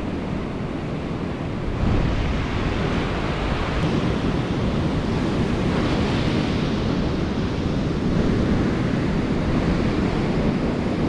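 Ocean surf breaking on the shore, with wind buffeting the microphone: a steady rushing noise that gets louder about two seconds in.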